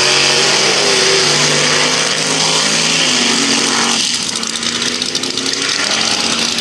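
Two vintage drag cars, a red Corvette and a black hot-rod coupe, accelerating hard off the start line at full throttle. Their V8 engines run loud, then sound fainter from about four seconds in as the cars pull away down the strip.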